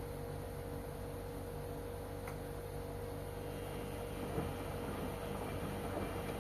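LG washing machine running mid-wash: a steady motor hum with a held tone. About four seconds in, a busier, uneven churning joins it.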